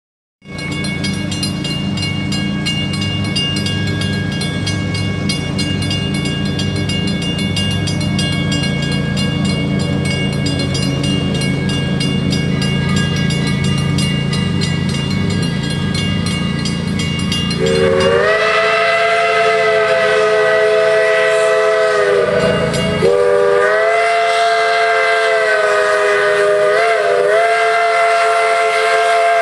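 Steam locomotive's three-chime whistle blowing a chord in the long, long, short, long grade-crossing pattern, each blast sagging in pitch as it opens and closes. Before the whistle comes a long stretch of steady low rumble with a slow pulse.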